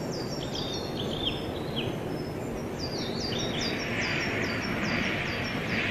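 Small birds chirping in quick runs of short falling chirps, about four a second, with a second, lower-pitched run of chirps in the first couple of seconds. A steady background noise runs underneath.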